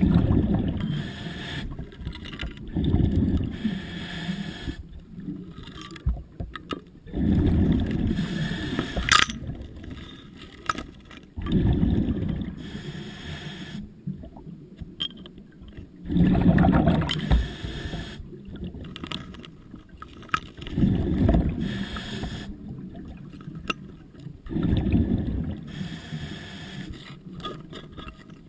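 Scuba diver's breathing heard underwater: bursts of exhaled bubbles from the regulator about every four seconds, each lasting a second or two. A sharp click sounds about nine seconds in.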